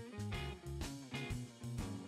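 Upbeat background music with a plucked guitar over a bass line and a steady beat.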